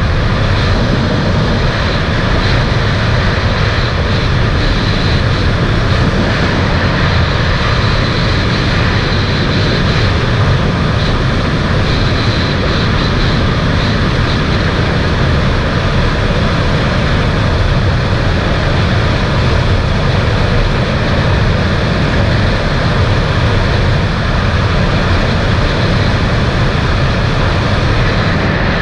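Supercharged 300 hp Sea-Doo jet ski running steadily under way, a continuous loud engine drone mixed with water and wind noise, with no letup.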